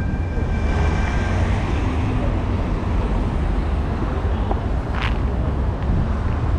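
City street traffic: a steady mix of passing vehicles and low rumble. A high steady whine fades out about a second and a half in, and a short sharp click-like sound comes near five seconds.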